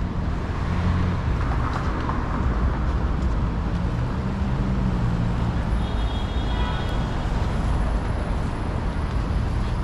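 Steady city street traffic: car engines rumbling low and tyres hissing as vehicles pass. A faint, brief high-pitched whine comes about six seconds in.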